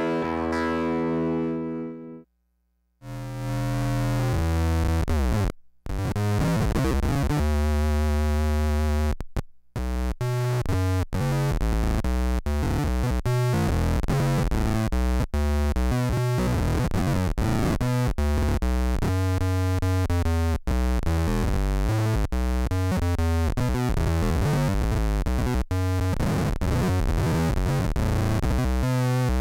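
Electric guitar played through an EarthQuaker Devices Bit Commander, a monophonic analog guitar synthesizer pedal, giving synth-like tones with octave-down bass. A held note cuts off about two seconds in. After a short gap comes a riff of separate stepped notes that runs on steadily from about ten seconds in.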